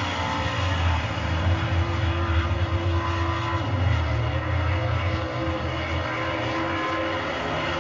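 Dirt late model race cars' V8 engines running hard as the pack passes, swelling about a second in and easing back after about five seconds.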